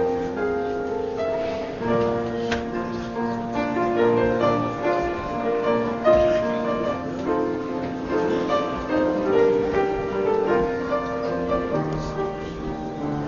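Slow instrumental keyboard music: a melody moving over held chords.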